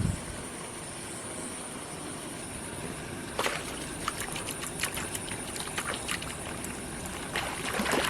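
Water splashing and sloshing in short, irregular bursts that start about three seconds in, over steady background noise.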